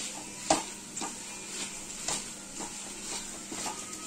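Hot grated coconut, sugar and jaggery mixture sizzling in a metal kadai, with irregular scrapes as a coconut shell half and a metal spatula press and turn it against the pan. The sizzle is the sign that the naru mixture is not yet done; it stops when the mixture is ready.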